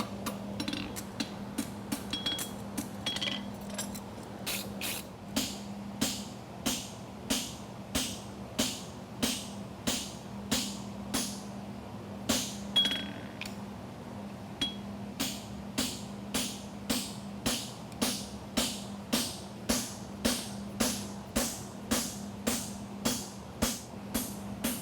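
Farrier's hammer striking a steel horseshoe on an anvil in a steady rhythm of nearly two blows a second, some strikes ringing, after lighter, sparser taps in the first few seconds. This is the fullering stage, working the nail groove around the shoe. A steady low hum sits underneath.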